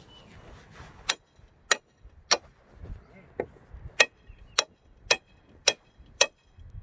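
Hammer blows, about nine sharp strikes in a steady rhythm of roughly two a second, starting about a second in, each with a brief bright ring.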